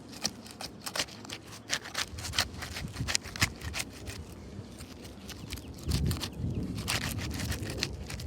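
Asphalt roof shingles being pried up and broken loose from their sealed courses: irregular sharp clicks, crackles and scrapes, with a low rumble joining in about six seconds in.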